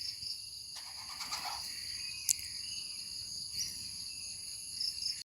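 Steady, high-pitched chorus of insects droning without a break. About a second in there is a brief rougher, lower sound, and a little past two seconds a single sharp click.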